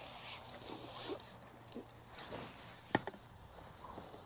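Handling noises of a pole angler landing a small fish: light rustles, knocks and clicks of the pole and landing net, with one sharp click about three seconds in.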